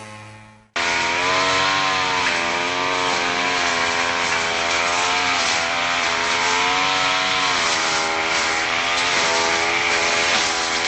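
A chainsaw starts abruptly under a second in and runs loud and continuously at high revs. Its engine note wavers up and down in pitch over a steady rasping hiss.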